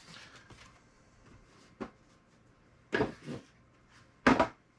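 Handling noises from a cardboard collectible box and its paper certificate: a faint rustle at first, a sharp click about two seconds in, then two louder knocks around three and four seconds in, the second the loudest.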